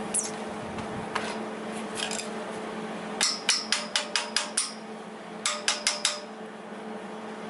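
Hammer striking the steel caster bracket of an engine cart: a quick run of about seven ringing metal strikes, a short pause, then four more.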